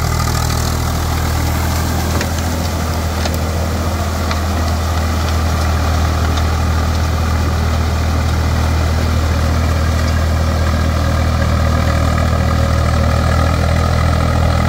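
Swaraj 744 FE tractor's three-cylinder diesel engine running steadily as the tractor pulls a rotavator through a flooded rice paddy.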